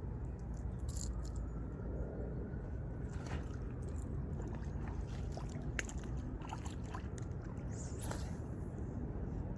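River water lapping and gurgling at the bank over a steady low rumble, with scattered small clicks and a brief hiss about eight seconds in.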